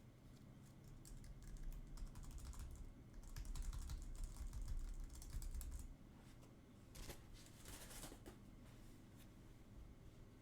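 Typing on a TypeMatrix 2030 USB keyboard: quick runs of key clicks, busiest in the first half, with a shorter flurry near the end.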